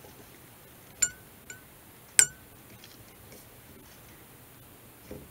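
Scalpel blade prying at a fretboard dot marker to lift it out: three sharp clicks with a brief ring, two about a second in, half a second apart, the second fainter, and a louder one just past two seconds.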